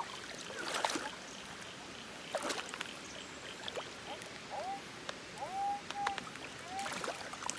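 Shallow creek water running steadily, with a few sharp knocks of metal or stone from digging in the creek bed and a run of short chirping tones in the second half.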